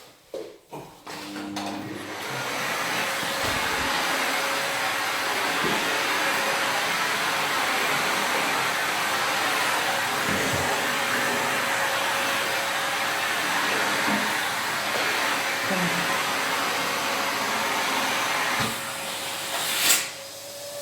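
Exsweep central vacuum system running: a steady rush of air through the suction hose with a faint steady whistle, starting about two seconds in after a few knocks. A sharp knock near the end, after which the suction sound drops.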